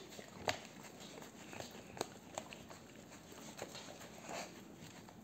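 Saarloos wolfdog licking out a small plastic cup: faint, irregular wet licks and sharp clicks of its tongue and teeth against the plastic, the loudest about half a second and two seconds in.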